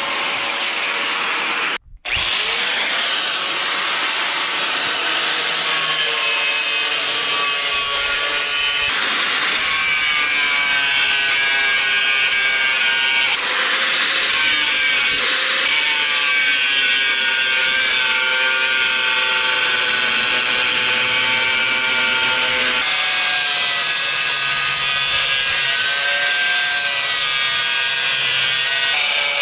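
Corded angle grinder running against the steel frame rails of a Chevy P30 motorhome chassis: a steady high whine with grinding noise. It breaks off briefly about two seconds in and its whine rises as it spins back up.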